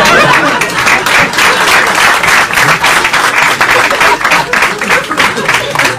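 Audience applauding: a dense patter of many hands clapping that keeps on steadily.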